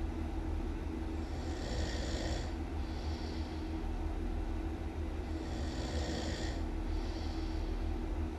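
Loud snoring: a longer breath then a shorter one, repeating about every four seconds and heard twice here, over a steady low rumble.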